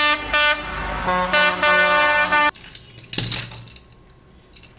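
Electronic horn sound effect: a few short toots, then a longer held honk that cuts off about two and a half seconds in. A sharp click follows.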